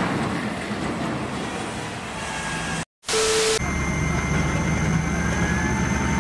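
The fading rumble and noise left after a steel roof frame collapses. After a brief break with a short tone and hiss about three seconds in, a wheel loader's diesel engine runs steadily with a low hum.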